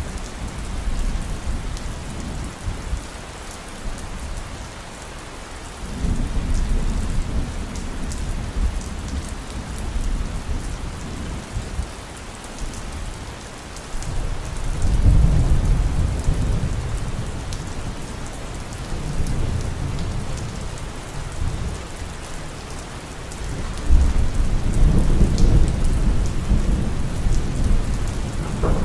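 Storm ambience: a steady rain-like hiss with deep rolling rumbles of thunder swelling up about six seconds in, again around fifteen seconds and near the end.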